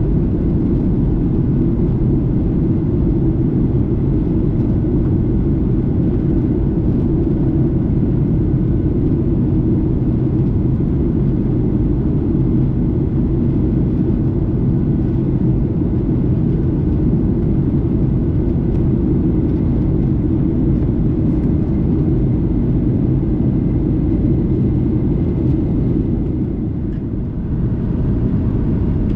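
Steady cabin noise of a Boeing 737-800 in flight: a deep, even rumble of engine and airflow noise, dipping briefly in level near the end.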